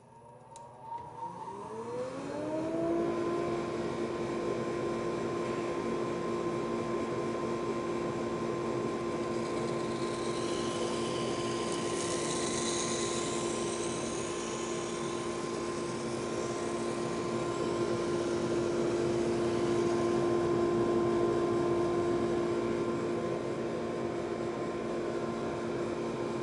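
SuperMax 19-38 combo drum/brush sander with a wire wheel head starting up, its motor hum gliding up in pitch over the first couple of seconds and then running steadily. About ten seconds in, a hiss joins for a few seconds as the wire wheel scrubs across a weathered barn board.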